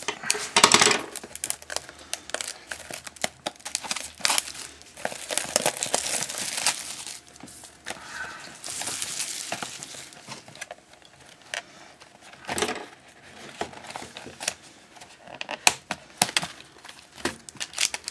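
Trading card pack wrapper crinkling and tearing as it is opened, with cards handled, in irregular crackly bursts and clicks.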